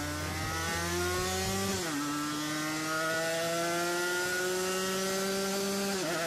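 Two-stroke motorcycle engine buzzing under hard acceleration. Its pitch climbs steadily, drops sharply with an upshift about two seconds in and again near the end, then climbs again.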